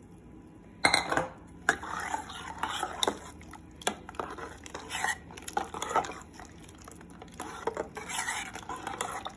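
Steel ladle stirring watery tomato rasam in a stainless steel pot, clinking against the pot several times with the liquid swishing in between.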